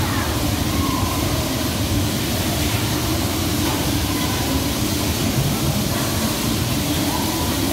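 Bumper cars driving around an arena: a steady, dense rumble of the cars rolling and running.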